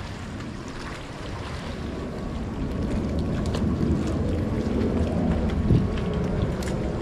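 Wind rumbling on the microphone over the sea, growing louder about two seconds in, with a few faint ticks.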